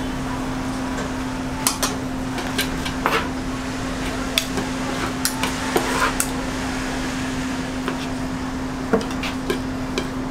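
Metal spatulas clicking and scraping against a cutting board and each other, a dozen or so sharp irregular clicks, over a steady low hum and a constant hiss.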